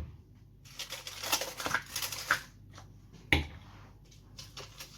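Crackling, rustling handling noise with small clicks, then a single heavier knock about three seconds in, as a container of chopped onions is handled in the kitchen.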